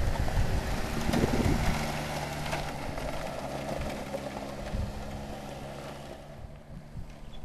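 Small ATV's engine running steadily as the quad rides across the dirt, growing fainter as it moves away. Wind rumbles on the microphone for the first second or two.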